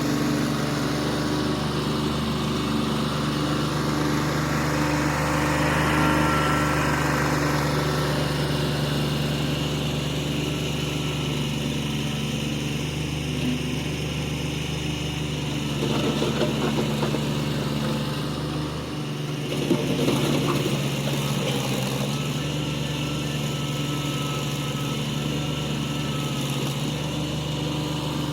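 Tractor engine running steadily, swelling briefly about six seconds in, with a few heavier knocks and surges around sixteen and twenty seconds in.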